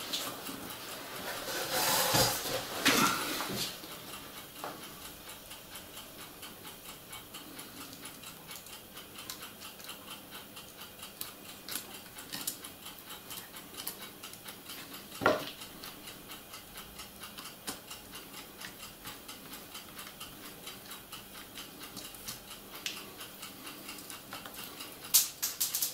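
Small plastic clicks and rustles from hands fitting a point motor onto a model railway turnout of Piko A-track: a louder patch of handling about two seconds in and one sharp click midway. Under it runs a faint, evenly repeating ticking.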